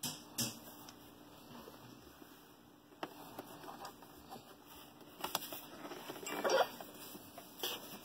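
Hard plastic casing and water tank of a small portable dehumidifier being handled: a few sharp clicks and knocks, with a short rustle about six and a half seconds in.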